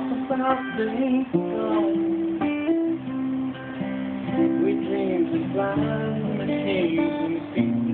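Steel-string acoustic guitar played fingerstyle: an instrumental passage of picked notes and chords over a moving bass line.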